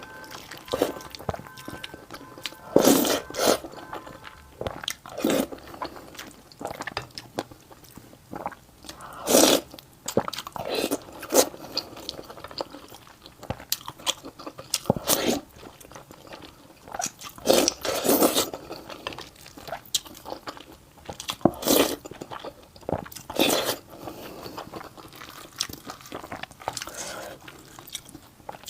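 Close-miked eating sounds: a person chewing and biting food, with irregular loud smacking and crunching mouth noises every two to three seconds between quieter chewing.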